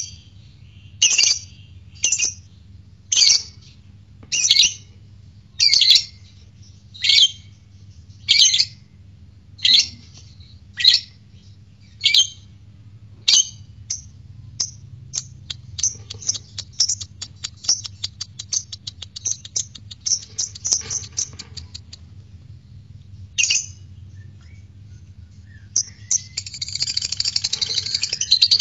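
Masked lovebird calling: loud shrill squawks about once a second, then, about 14 seconds in, a rapid ticking chatter that runs for some eight seconds. After a pause and a single squawk, a burst of dense shrill chattering comes near the end.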